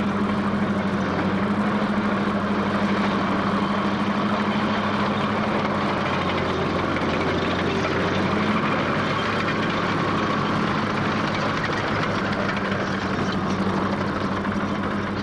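Bulldozer engine running steadily with a low, even drone.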